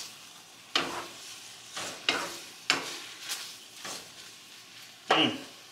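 A wooden spoon stirring tortellini and tomatoes in a wok over a gas flame, scraping against the pan about once a second, with a light sizzle underneath.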